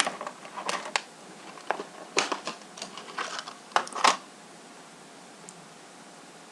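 Small objects being handled and rummaged close to the microphone: a quick run of clicks, taps and rustles that stops after about four seconds, leaving only faint room hiss.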